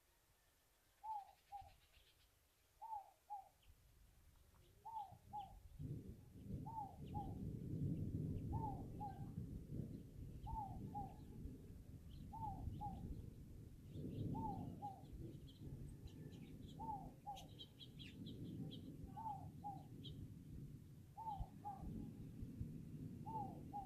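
A bird calls a short two-note phrase over and over, about every two seconds. From about six seconds in, a low rolling rumble of thunder rises and swells and fades, louder than the bird.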